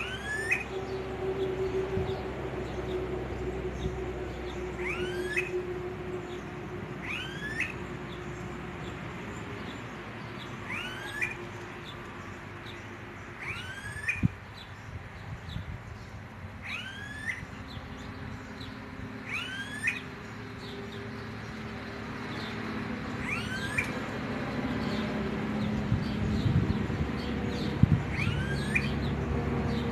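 Smooth-billed ani giving its whining, upslurred whistle call about ten times, one call every few seconds. Each call rises steeply in pitch, like a short siren sweep.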